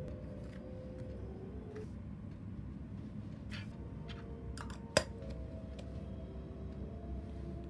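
Small taps and clicks of stationery being handled while journaling, with one sharp click about five seconds in, over soft background music with held notes.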